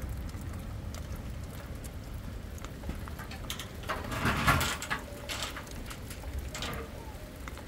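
Steady rain with scattered drops pattering, and a brief louder noise about four seconds in.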